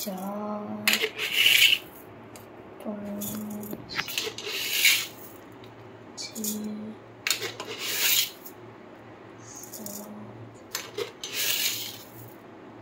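Granulated sugar scooped from a tin with a small plastic measuring spoon and tipped into a steel jug of chopped mango: a gritty rustle and rattle about every three seconds.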